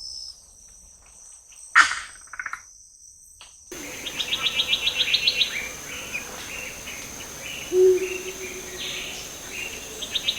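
Forest field recording with a steady high insect drone under assorted bird calls: a sharp call about two seconds in, then, after an abrupt change of background, a fast run of high pulsed notes and scattered short notes. About eight seconds in comes a single deep hoot, the greater black coucal's call.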